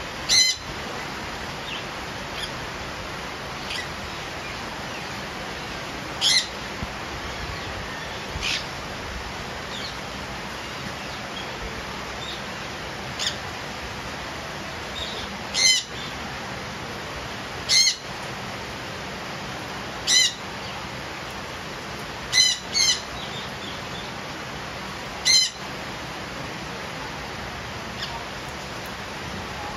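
Indian ringneck parakeets giving short, harsh, high screeches every few seconds, about ten in all, two of them close together about two-thirds of the way in. Under them is a steady hiss of rain.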